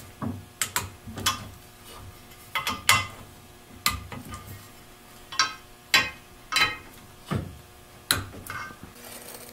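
A torque wrench clicking on the bolts of an oil pump cover, a dozen or so sharp metallic clicks at uneven intervals, sometimes in pairs. The cover is being tightened down over Plastigage strips to measure the pump gears' clearance.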